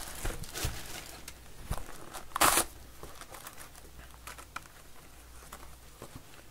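Plastic shrink-wrap crinkling and tearing as it is pulled off a Topps Series Two hobby box of baseball cards, loudest in a short rustle about two and a half seconds in. After that come only faint clicks and scrapes of the cardboard lid being opened.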